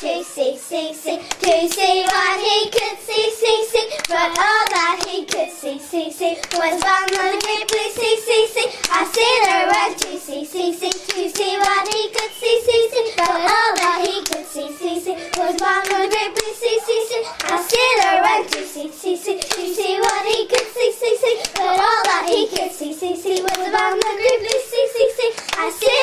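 Young girls singing a clapping-game rhyme together while clapping their hands against each other's in a steady rhythm.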